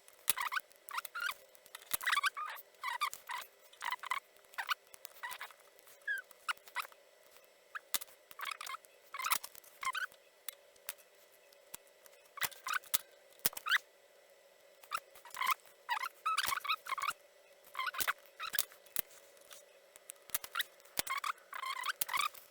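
Irregular small clicks and scratches of hand work on a relay circuit board during soldering: tools and component leads tapping, scraping and snipping.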